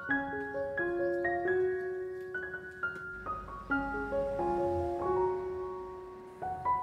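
Background piano music: a melody of single notes struck one after another over held lower notes, each left to ring and fade.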